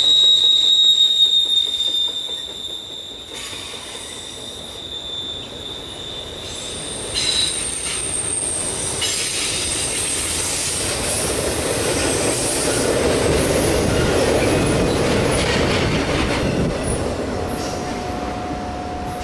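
Freight train of enclosed autorack cars rolling past, wheels squealing with a steady high tone for the first several seconds, then a higher squeal. The rolling noise swells as the last cars go by, then eases off near the end.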